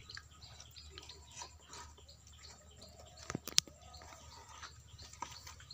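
Quiet handling noises: faint scattered clicks and rustles of hands moving wet fish and leaves in a plastic basin, with two sharper clicks about three and a half seconds in.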